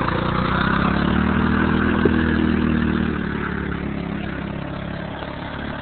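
Car engine running as it drives through flood water, its pitch rising slightly about a second or two in, then fading away over the last few seconds.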